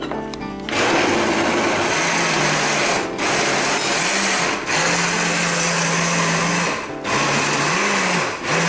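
Countertop blender grinding a thick mix of leftover foods, run in four bursts with brief pauses between them.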